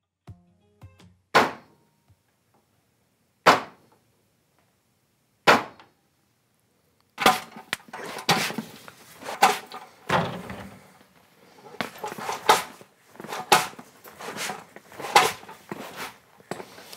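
Three sharp knocks about two seconds apart. Then, from about seven seconds in, irregular rattling and clanking of handcuffs being jerked against a metal chair frame.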